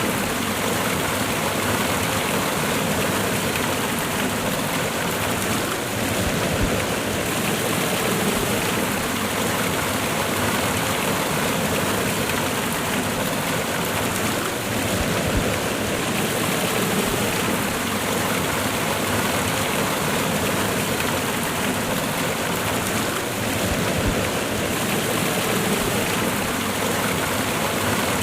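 Cascading waterfall: water rushing and splashing steadily over rocks.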